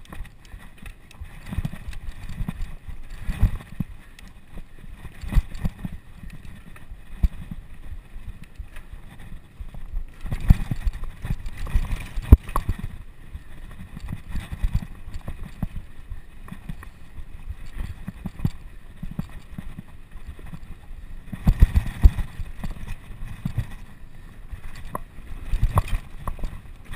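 Bicycle rolling over rough ground, heard through a camera carried on the bike or rider: irregular low thumps and knocks over a steady rumble, with heavier runs of jolts about 3 s in, from about 10 to 12 s, and about 22 s in.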